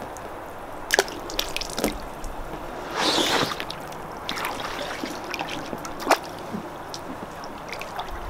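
Water splashing and dripping in an inflatable paddling pool as a plastic tub of Orbeez is lowered in and tipped out under the water, with a brief louder slosh about three seconds in.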